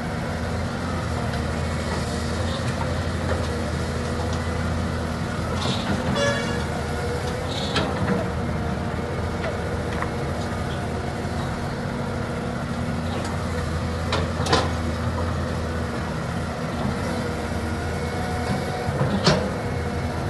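A heavy diesel engine running steadily, with four sharp knocks spread through, one about six seconds in carrying a short high squeal.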